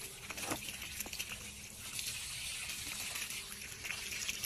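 Liquid fertilizer solution pouring from the spout of a plastic watering can onto grass and soil, a steady splashing stream.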